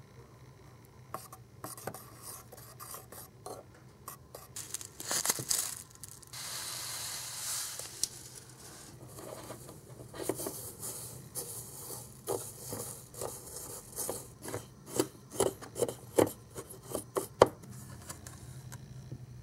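A small plastic spatula stirring melted chocolate and scraping against a small glass pot, with a steady rustle for about two seconds about six seconds in. From about ten seconds in, a quick run of sharp clicks and scrapes as crispy rice puffs are mixed into the chocolate against the glass, the sharpest click near the end.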